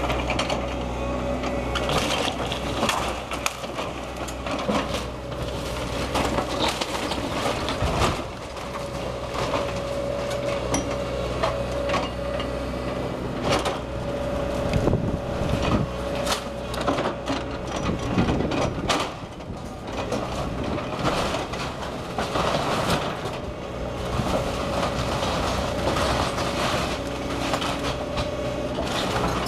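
Link-Belt excavator demolishing a brick house: its engine runs steadily with a constant whine while the bucket crunches through wood and brick, with repeated cracks, knocks and clattering debris.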